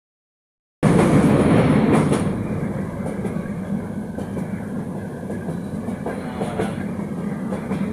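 Steady low rumble of a moving vehicle, starting abruptly about a second in, loudest at first and then settling slightly quieter.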